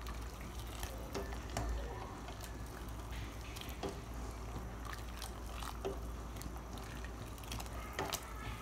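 Wooden spoon stirring soup in a stainless steel pot, the liquid sloshing, with scattered light clicks and knocks of the spoon against the pot.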